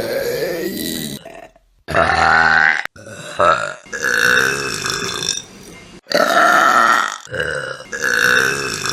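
A run of long, loud human burps, one after another, with abrupt cuts between them.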